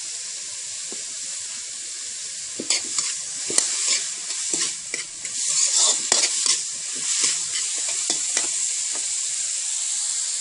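Boiled bamboo shoots sizzling in a steel wok with a steady hiss. From a few seconds in, a metal spatula scrapes and clacks against the wok as the shoots are stirred.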